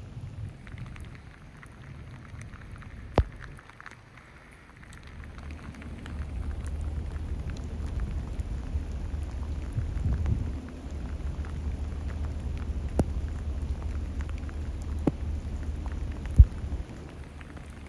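Steady typhoon rain with a low rumble underneath, growing louder about six seconds in, and a few sharp knocks scattered through.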